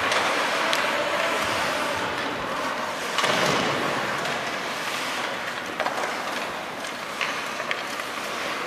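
Ice hockey play in an arena: skate blades scraping across the ice and the clack of sticks and puck over a steady hall noise, with a louder knock about three seconds in.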